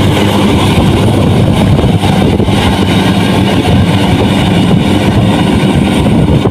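Combine harvester engine running steadily and loudly, a constant low drone with machinery noise.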